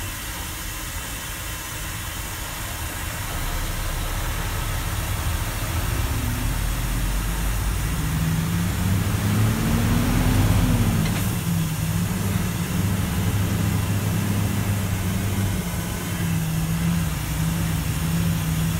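Mercedes-Benz truck's diesel engine, heard from inside the cab while driving. Its pitch climbs as the truck pulls, drops back sharply about halfway through, then runs steadily.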